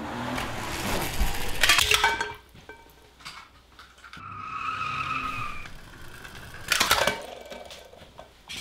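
Car sound effects: a noisy rush that rises to loud crackling strikes about two seconds in, then a held high squeal like skidding tyres from about four to nearly six seconds in, and a short loud burst near seven seconds.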